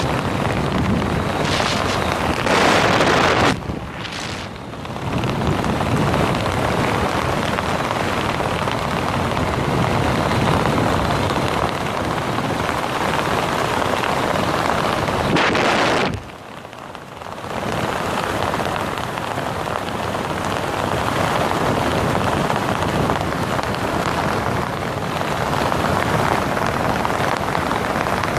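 Wind rushing over the camera microphone during a descent under an open ram-air parachute canopy. It is a loud, steady noise that dips briefly about four seconds in and again about sixteen seconds in.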